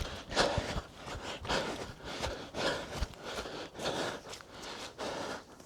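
A jogger's heavy rhythmic breathing, a breath about every half second, with soft footfalls on forest ground.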